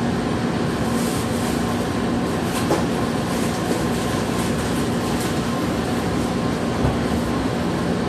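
Steady hum and noise of an electric train's onboard equipment while it stands at a station, heard inside the cab, with two light knocks partway through.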